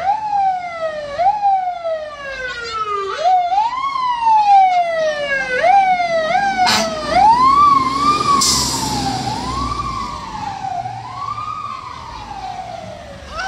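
Fire engine siren sounding in repeated rising and falling sweeps as the truck passes close by, the sweeps becoming slower and rounder about halfway through and then fading. The truck's engine rumbles as it goes by, with a short hiss about eight seconds in.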